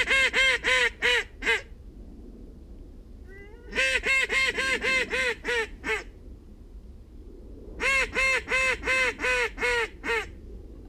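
Hand-blown goose call sounding rapid runs of honks imitating Canada geese, to draw geese in. There are three runs of about seven honks each, one run every four seconds or so, each honk a quick rise and fall in pitch.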